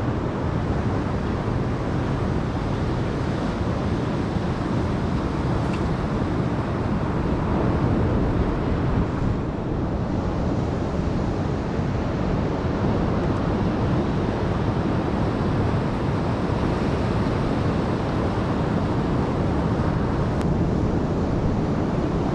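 Ocean surf breaking steadily on a rocky shore, with wind buffeting the microphone.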